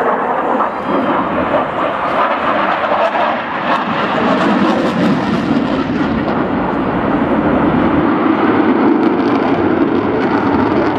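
Eurofighter Typhoon's twin jet engines heard during its flying display: loud, steady jet noise that grows a little louder and deeper about halfway through.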